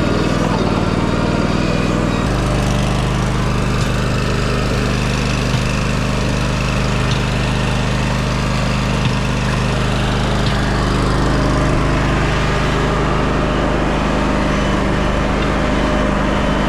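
An engine running steadily. Its pitch shifts slightly about two seconds in, then holds.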